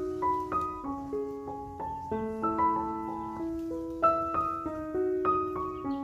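Background instrumental music: a slow melody of single struck notes that ring on, over lower held notes.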